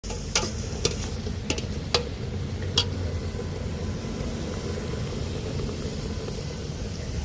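Chicken curry sizzling and bubbling in a pot, over a steady low hum, with five sharp clicks in the first three seconds.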